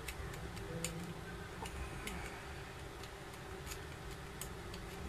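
Faint, irregular plastic ticks and clicks from a ring maze puzzle as its clear plastic ring is twisted and slid along the maze cylinder, the ring's guide catching in the grooves.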